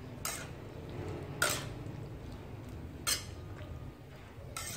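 Metal ladle scraping against a metal wok as cauliflower is stir-fried: four short scrapes, roughly one every second and a half.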